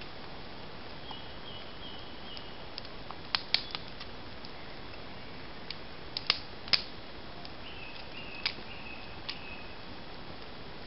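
Freshly lit campfire of small sticks and kindling crackling, with a few sharp pops that come in small clusters every couple of seconds over a steady low hiss.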